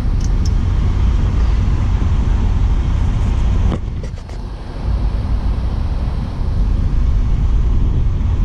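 Steady low rumble of motor vehicle noise, dipping briefly about four seconds in, where a few sharp clicks sound.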